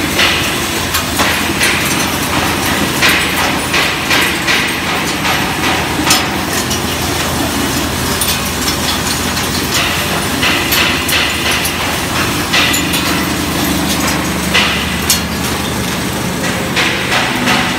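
Eddy current separator running with crushed glass cullet clattering through it, many sharp clinks and rattles of glass pieces over a steady machine hum. The machine is sorting aluminium pieces out of the glass.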